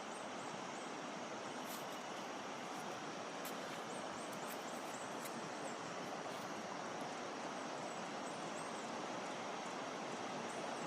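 Steady rushing of flowing river water, with faint short high chirps over it.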